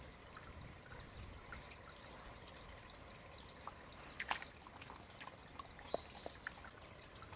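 Faint water trickling and dripping, with single drops plinking now and then; the sharpest drops come a little over four seconds in and again near six seconds.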